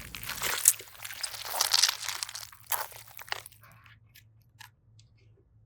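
Slime being squeezed and folded by hand, giving crunchy, crackling pops. The crackling is dense at first, then thins out about three and a half seconds in to a few scattered small clicks.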